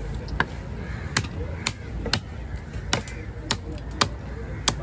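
A broad fish-cutting knife chopping fish into pieces on a wooden chopping block: about eight sharp chops, irregularly spaced, roughly two a second, over a low steady background murmur.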